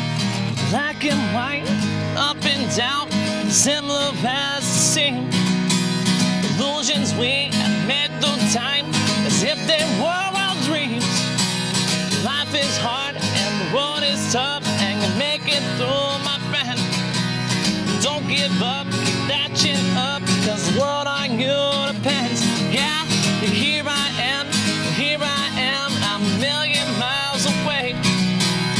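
Epiphone acoustic guitar strummed steadily in an instrumental passage of a country-folk song.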